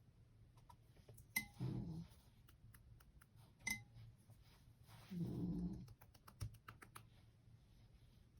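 A sleeping dog snoring: two long snoring breaths, about a second and a half in and again about five seconds in. A few sharp little taps and clicks fall between them.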